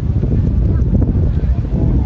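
Wind buffeting the microphone, a dense, steady low rumble, with faint voices of people nearby.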